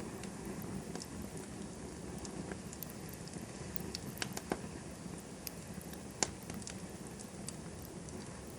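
Wood campfire burning, with scattered small crackles over a low steady hiss and two sharper pops after the middle.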